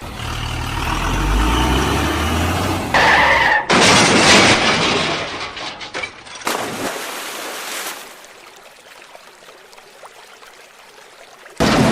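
Cartoon vehicle sound effects cut together. A truck engine runs, then a brief high squeal like skidding tyres, followed by several seconds of loud harsh noise. A quieter stretch ends when another loud noise starts abruptly near the end.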